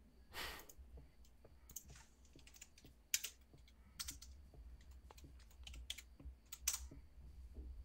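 Faint, irregular computer keyboard typing: scattered key clicks at an uneven pace over a low background hum.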